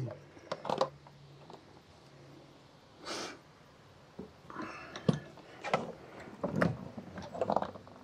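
Handling noise of a cordless drill with a long extension bit being positioned against a wooden water board: scattered clicks and knocks, with a short hiss about three seconds in. No drill motor is heard running.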